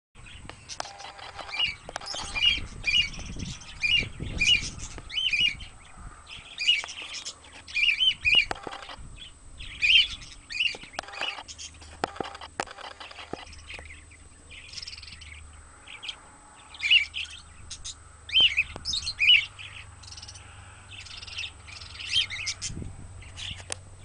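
Cockatiel chirping: short, bright calls repeated in quick runs of several, with short pauses between the runs.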